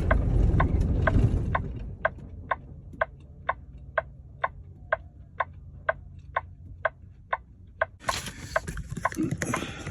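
Turn-signal or hazard flasher ticking steadily in a semi-truck cab, about two clicks a second, over the low idle of the truck's engine. A louder rush of noise comes in near the end.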